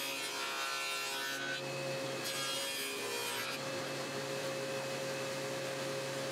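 Table saw with a dado blade stack running with a steady whine while half-inch dados are cut in cherry boards. There are two cutting passes, one ending about a second and a half in and another about two seconds later. After that the blade spins free.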